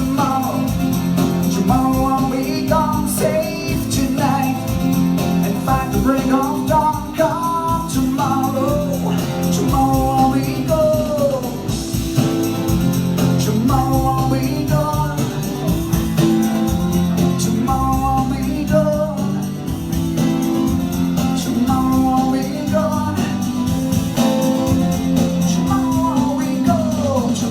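Live rock band playing a song with singing over guitars and a steady rhythm section.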